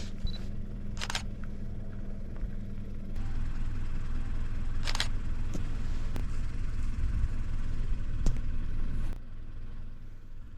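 Steady low rumble, louder from about three seconds in until near the end, with a few sharp clicks, a camera shutter being fired.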